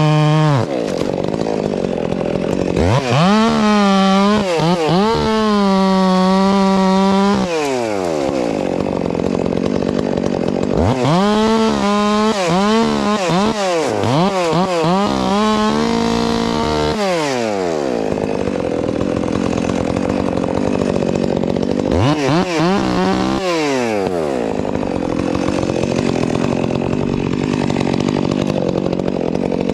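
Chainsaw bucking a large ash trunk. The engine is revved up to a high whine three times, its pitch wavering and sagging as it is loaded, and between revs it runs on in the cut with the chain chewing through wood.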